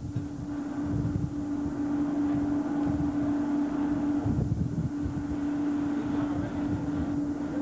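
A ship's machinery drone: one steady humming tone over low rumbling noise that swells and fades irregularly, with wind buffeting the microphone.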